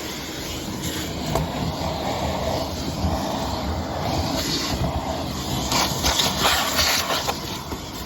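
Vacuum cleaner running while vacuuming out a car trunk, its sound shifting unevenly as the nozzle moves, with a louder, rougher crackling stretch about six to seven seconds in.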